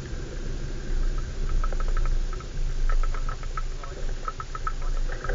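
A 4x4's engine runs low and steady as the vehicle creeps along a muddy track. Over it come many quick, irregular squeaky clicks that grow busier after the first second or so.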